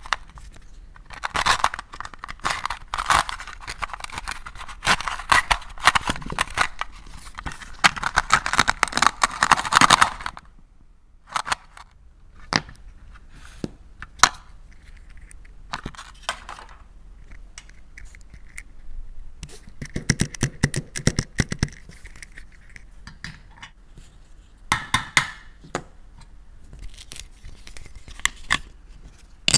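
Plastic toy cutting fruit handled and pulled apart: a rasping, velcro-like tearing that goes on for several seconds, then scattered plastic clicks and taps as pieces are set down on a plastic plate. Shorter scraping and rasping bursts follow later.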